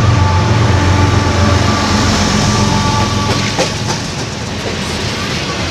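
CSX freight train passing close: the diesel locomotives go by with a deep engine drone and steady whine. About three seconds in this gives way to the rumble and clatter of autorack cars rolling over the rails, with a few sharp clicks.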